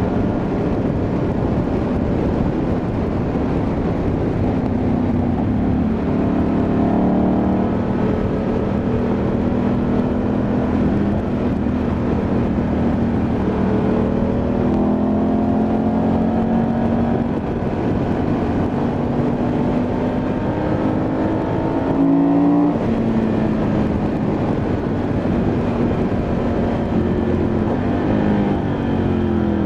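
Ducati Multistrada 1100S's air-cooled L-twin engine running under way, its note climbing and falling with the throttle, with a sharp change in pitch about two-thirds of the way through. Steady wind and road noise run underneath.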